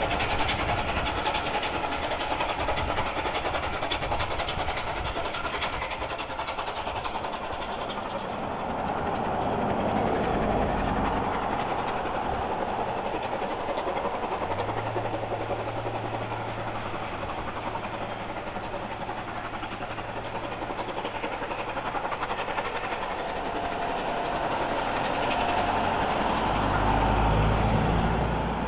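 A steam train running along the line, then a Bulleid Battle of Britain class three-cylinder steam locomotive working its five-coach train up a climb, getting louder near the end as it approaches.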